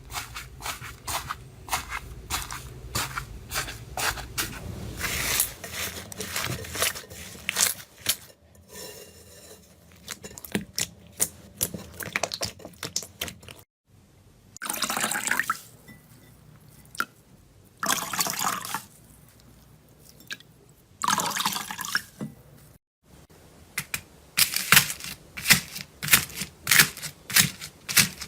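Slime being squeezed, pressed and stretched by hand: dense runs of sharp crackling pops, with three longer wet squelching sounds in the middle. The sound breaks off twice, briefly.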